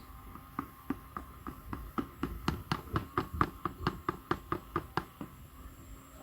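A knife chopping rapidly on a cutting board, about twenty even strokes at roughly four a second that grow louder and then fade off about five seconds in.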